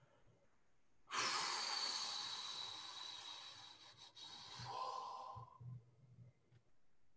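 A person's long breathy exhale, a hiss that starts suddenly about a second in and fades away over some four seconds.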